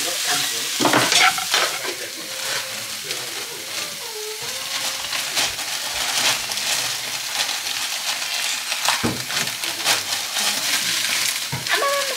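Broccoli and meat sizzling steadily in a hot wok, with a wooden spatula scraping and knocking against the pan now and then.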